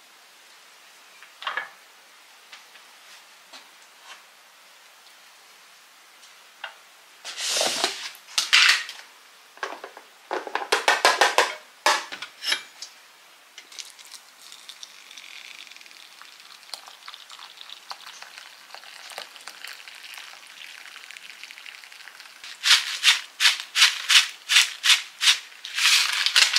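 Kitchen preparation sounds: a few light knocks, then bursts of rustling and rattling, then hot water poured in a steady stream from a stainless kettle into a wooden soup bowl. Near the end, a quick run of about ten rattling shakes as dried wakame is shaken from its packet into the miso soup.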